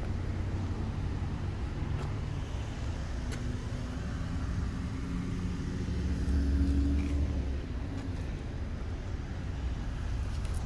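Low, steady rumble of a motor vehicle running, with wind on the microphone; it grows louder about six seconds in, then settles back.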